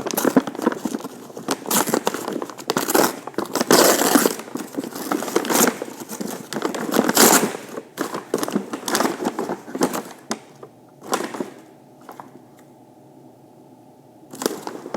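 Pocket knife blade shaving bark off a stick, a run of scratchy rasping strokes that stop about ten seconds in, with one more stroke shortly after.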